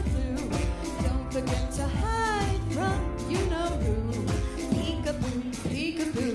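A woman singing a song over instrumental accompaniment.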